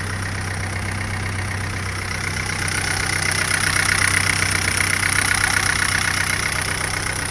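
Chevrolet Astra's four-cylinder petrol engine idling steadily, with a rapid metallic clatter that grows louder for a few seconds in the middle. The engine is warming up after a coolant refill so the thermostat opens.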